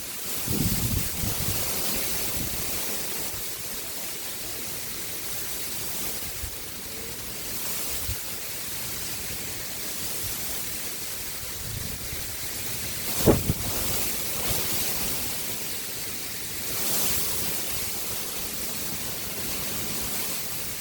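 Steady rushing of river water, with wind buffeting the microphone in low rumbles near the start. One sharp knock about thirteen seconds in.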